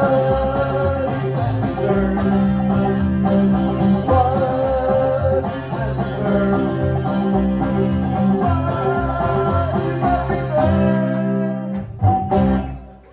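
Banjo and upright double bass playing live together, plucked banjo notes over steady low bass notes. Near the end the music thins out and closes on one last struck note that rings briefly and stops.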